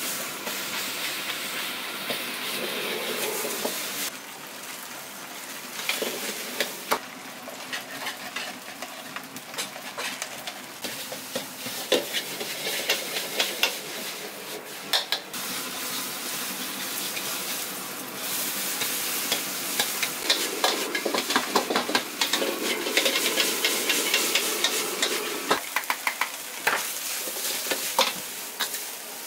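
Food sizzling in a hot wok while a metal ladle stirs and tosses it, scraping and clacking against the pan many times. The sizzle swells and eases as the food is moved around.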